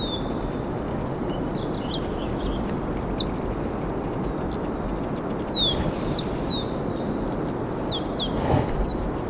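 Small birds calling with many quick, high chirps, several sliding down in pitch, over a steady rushing background noise.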